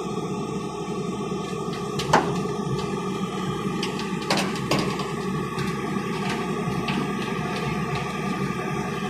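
Excavator engine running steadily under load, with a few sharp knocks, the loudest about two seconds in and two more a little past the middle.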